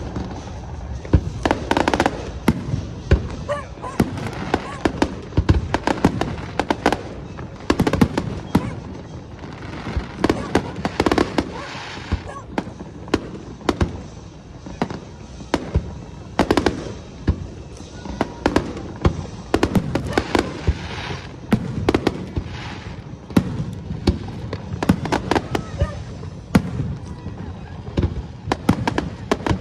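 Aerial fireworks show: a long run of sharp bangs from bursting shells, some coming singly and some packed into rapid clusters.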